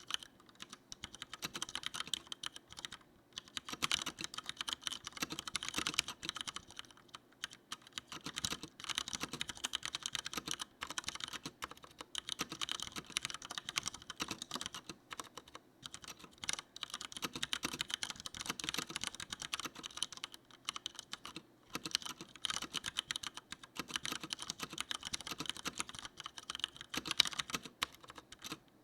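Leopold FC900R mechanical keyboard with Cherry MX Brown tactile switches, being typed on in runs of rapid keystrokes broken by a few brief pauses.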